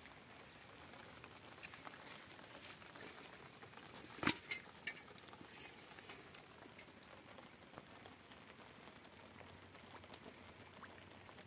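Light rain pattering steadily on leaves and shallow water. About four seconds in there is one sharp knock, followed quickly by two smaller clicks.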